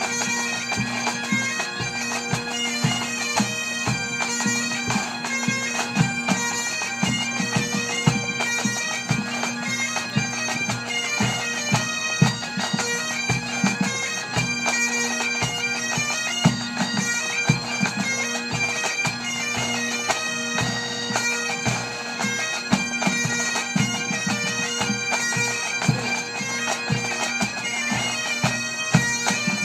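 Pipe band playing: Great Highland bagpipes sounding a melody over their steady, unbroken drones, with drums beating throughout.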